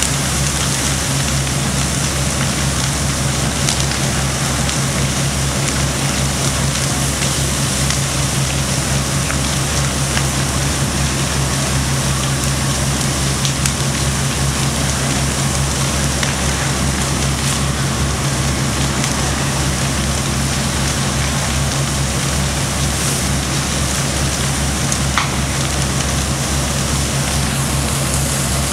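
House fire burning: a steady rush of flames with scattered crackles and pops, one sharper pop near the end. Underneath runs the steady low rumble of an engine.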